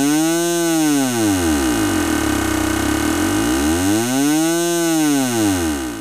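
Granular synth sound made from a toilet-flush water recording in Ableton Live's Granulator II, its grain size swept by a slow sine-wave LFO: a pitched, buzzy drone with hiss on top that glides up and down twice, about four seconds per cycle, fading out near the end.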